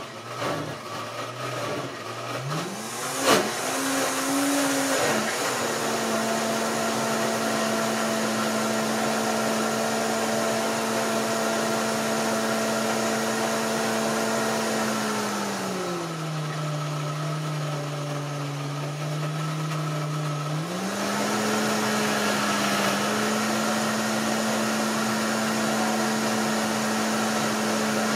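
Vevor Professional blender's motor running its grind preset on a thick chili paste, inside its sound-dampening enclosure. The motor speeds up over the first few seconds, with one sharp knock about three seconds in, then holds a steady pitch. Past the middle it drops to a lower speed for about five seconds before speeding up again.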